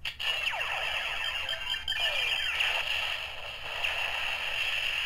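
Synthesized sound effects from a Kamen Rider W FangJoker Ridewatch toy: a sustained electronic whir with several falling swoops.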